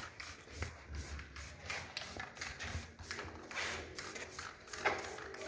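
Aerosol spray can of clear coat hissing in short, quick bursts, about three a second, as the lacquer is misted onto an alloy wheel. A single sharp click near the end.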